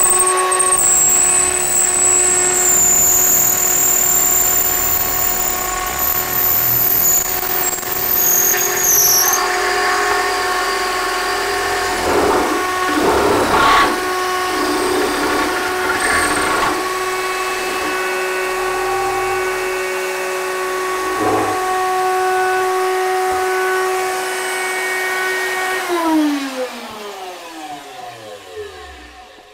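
Router table and drill running together with a steady whine while a square Doug fir stick is spun through a router jig and cut round into an arrow shaft, with rougher rasping bursts as the bit bites. Near the end the whine falls in pitch and fades as the motor winds down.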